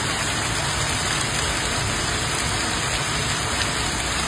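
Hail falling with rain onto a lawn, sidewalk and street, a dense steady hiss with no single hits standing out.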